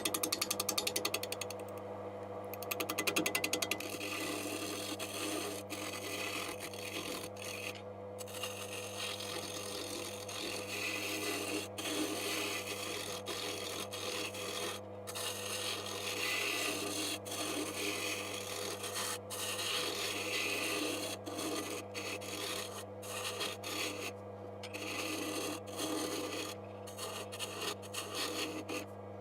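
Wood lathe running at its lowest speed with a steady motor hum while a turning tool cuts the spinning wooden blank round: an uneven rasping scrape, with rapid ticking near the start as the tool meets the blank.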